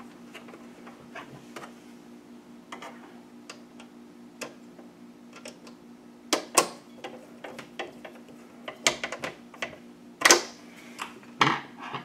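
Scattered light metal clicks and taps as a screw is driven into a PCIe expansion card's bracket in a computer case, with a few louder clicks in the second half.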